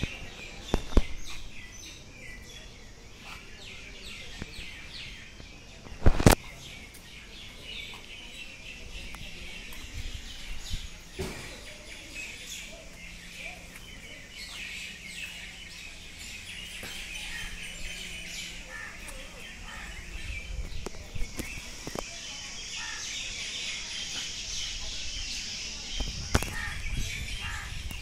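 Birds chirping and calling continuously over outdoor background noise, with a few sharp knocks: one about a second in, a louder one about six seconds in, and another near the end.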